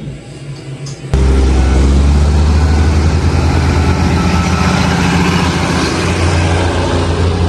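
A heavy vehicle engine running loud and close, cutting in abruptly about a second in and staying steady.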